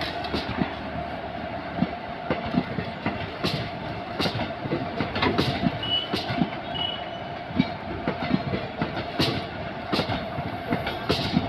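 Passenger train hauled by a WAG-9 electric locomotive running on the track: a steady rumble and hum, with wheels clicking irregularly over rail joints. Two brief faint squeals come about six and seven seconds in.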